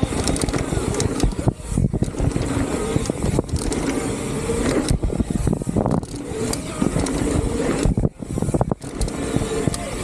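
Salsa Cassidy mountain bike descending a dirt trail at speed: wind rushing over the camera microphone, tyre noise, and the frame and chain rattling with sharp clacks over bumps.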